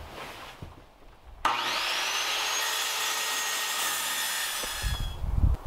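Ryobi circular saw starting with a quickly rising whine and cutting through a wooden board for about three seconds, then stopping abruptly. A few low thumps follow near the end.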